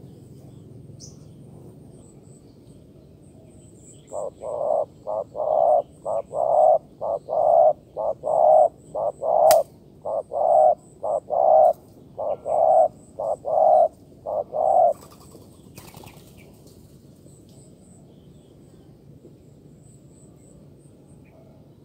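Spotted dove giving its bowing coo: a run of about twenty short, low coos, roughly two a second, starting about four seconds in and lasting some ten seconds. Faint high chirping runs underneath, and a single sharp click comes midway.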